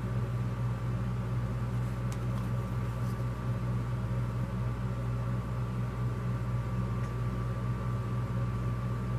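Steady low machine hum, like a fan or appliance running, with a faint paper rustle or two as a flyer is handled.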